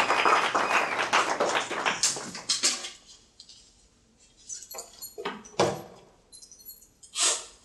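Audience clapping fading out over the first three seconds. Then a few sharp clicks and knocks, and one louder scrape near the end, as a rolling suitcase is set down and opened.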